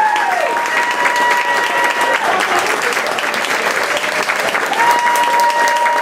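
Crowd applauding, with long drawn-out high-pitched cheers ringing out over the clapping at the start and again near the end.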